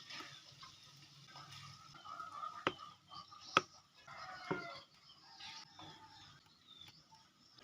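Chickens clucking, with three sharp knocks about a second apart near the middle.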